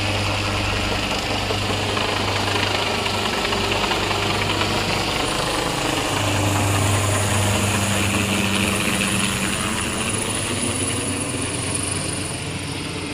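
Helicopter flying low overhead with its rotor beating steadily. It is loudest as it passes overhead about six to seven seconds in, then fades as it moves away near the end.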